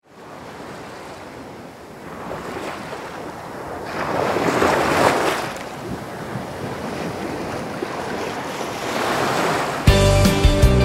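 A rushing noise like surf or wind, swelling to a peak about four to five seconds in and easing off, rising again shortly before the end. Near the end, music with a strong beat starts abruptly.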